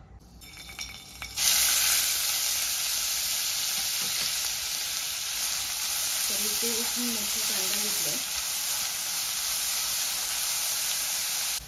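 Chopped onions sizzling in hot oil in a steel kadhai and being stirred with a metal slotted spoon. The loud, steady frying hiss starts suddenly about a second and a half in, as the onions go into the oil.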